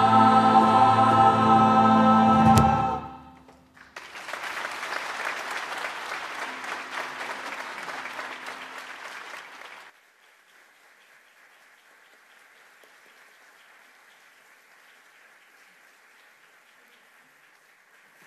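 A youth choir holds its final sung chord, which ends about three seconds in. About a second later the audience applauds for roughly six seconds, and the applause stops suddenly, leaving faint room noise.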